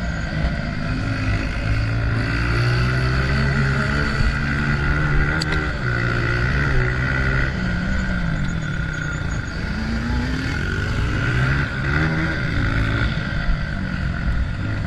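Honda CRF125F dirt bike's single-cylinder four-stroke engine under throttle, its pitch rising and falling again and again as the rider opens and closes the throttle.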